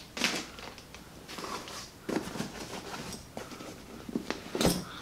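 Light rustling and a few small clicks of toiletry items and a bag being handled, with a sharper click near the end.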